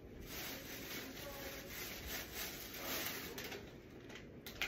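Faint rustling and handling sounds over a steady room hiss.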